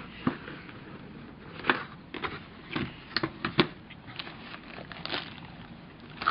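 A cardboard model kit box being opened by hand and its contents handled. The lid lifts off, and the paper instruction sheet and the plastic bags of parts rustle and crinkle, with a handful of sharp taps and clicks scattered through.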